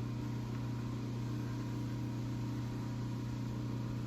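Metal lathe running with a steady, even hum while turning aluminium bar stock.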